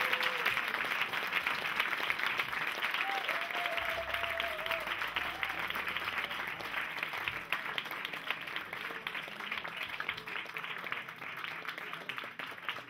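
Audience applauding, the clapping gradually thinning and fading.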